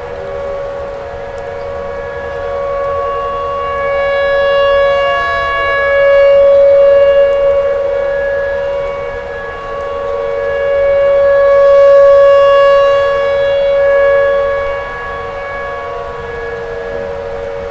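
Outdoor tornado warning siren sounding a steady, held wail with strong overtones. It swells louder and fades back twice.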